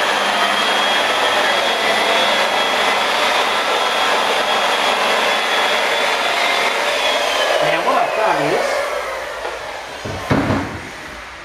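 Handheld rotary polisher with a foam pad running steadily against car paintwork, cut-and-polishing to remove scratches. About seven seconds in its motor note falls as it spins down, and a loud thump comes near the end.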